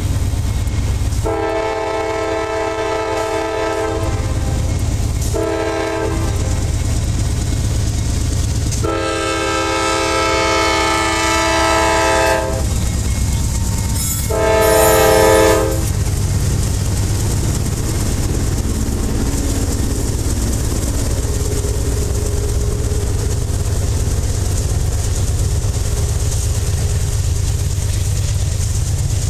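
CSX CW44AC diesel locomotive sounding its chime horn for a grade crossing in four blasts: long, short, long, short, the third the longest. The locomotive then passes, and the steady low rumble and clatter of covered hopper cars rolling by follows.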